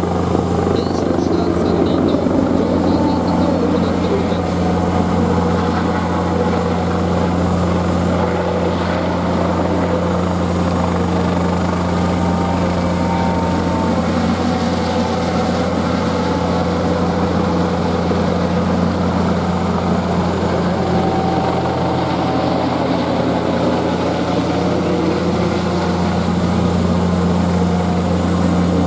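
Fire-department helicopter flying, its rotor and engine running steadily with a constant low hum.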